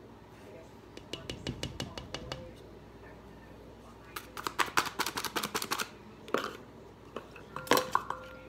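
Paper flour bag crinkling as flour is scooped out of it with a measuring cup. It comes in two bursts of rapid crackling, about a second in and again halfway through, with a few sharper clicks near the end.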